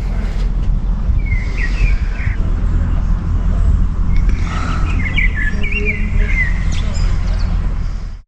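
Small birds chirping: a short run of calls about a second in and a longer one from about four to seven seconds, over a steady low rumble.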